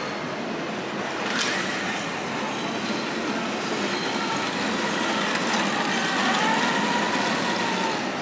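Radio-controlled scale model tank driving over dirt: a steady engine-like running sound with a whine that bends in pitch near the end. There is a single sharp click about a second and a half in.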